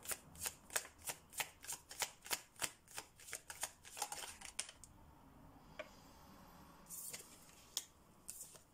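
A deck of tarot cards being shuffled by hand, a regular slapping of cards about three times a second that stops a little under five seconds in. Near the end, cards are slid and laid down on a wooden table with a brief soft hiss and a light tap.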